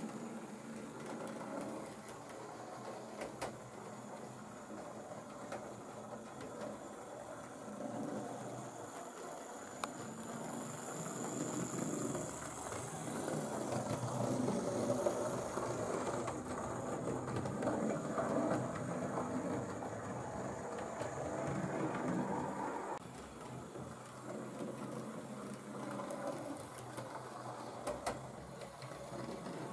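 Hornby Railroad GWR Holden 101 class OO-gauge 0-4-0 model locomotive running on track: its small electric motor and gears whirring, with a few clicks from the wheels on the rails. The whir grows louder through the middle and drops suddenly about two-thirds of the way in.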